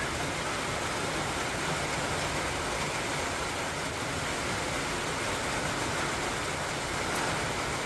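Heavy rain falling in a forest: a steady, even hiss.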